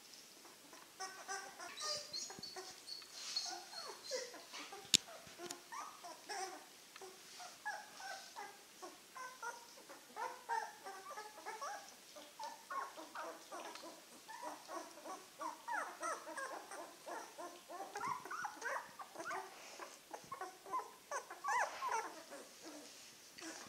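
Nine-day-old Czechoslovakian wolfdog puppies whimpering and squeaking in many short, quick calls. A single sharp click sounds about five seconds in.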